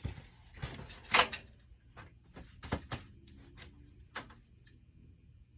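Hand tools being handled on a workbench: a string of sharp metal clicks and clinks, the loudest about a second in, thinning out after about four seconds.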